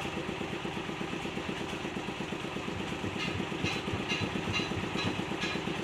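An engine idling steadily. From about three seconds in, a sharp stroke repeats about twice a second.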